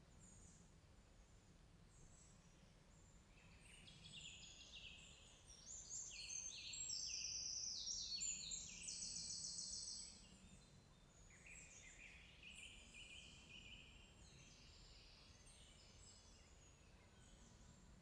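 Woodland songbirds singing: a fast, trilling song of rapid repeated high notes swells about four seconds in and breaks off around ten seconds, followed by quieter phrases, over faint steady low background noise.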